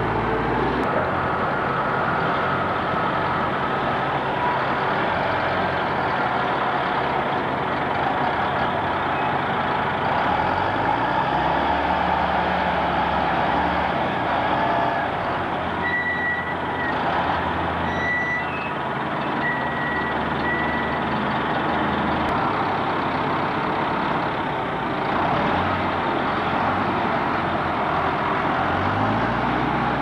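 A heavy vehicle engine running steadily, its low note shifting a couple of times, with a few short high beeps about halfway through.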